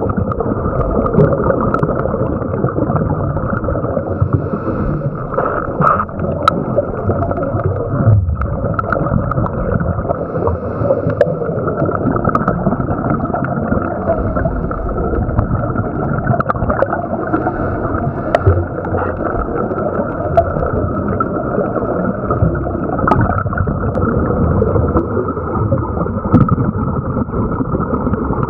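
Muffled underwater noise heard through a camera's waterproof housing: a steady gurgling rush of scuba exhalation bubbles and moving water, with scattered small clicks.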